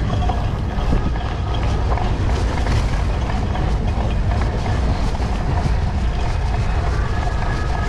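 Cyclocross bike riding fast over a wet, muddy course: a steady rush of wind over the microphone and tyre rumble, with frequent small knocks and rattles from the bike going over rough ground.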